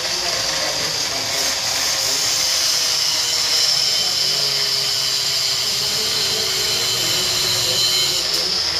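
Handheld power tool running continuously while cutting off part of a motorcycle top-case bracket, with a steady high hiss from the cut. Its motor pitch sags a little near the middle and recovers near the end.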